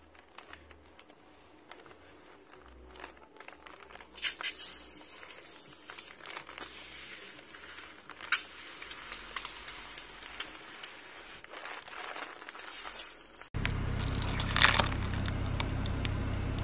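A plastic zip-top bag of coloured foam being squeezed and handled: plastic crinkling and foam squishing, growing gradually louder. About three-quarters of the way through, a louder steady noise starts abruptly, with a sharp crunch as a car tyre rolls over and crushes a bundle of coloured sticks.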